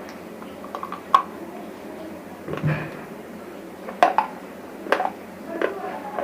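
Dry, brittle chip-like pieces being crunched, giving about five separate sharp, crackling snaps spread across the few seconds.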